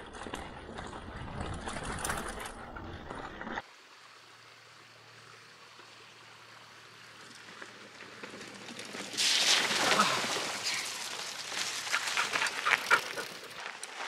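Mountain bike riding through a rocky creek crossing: tyres and frame rattling over rocks. The sound cuts off suddenly about three and a half seconds in, and from about nine seconds in there is loud rough splashing and clattering with many sharp clicks.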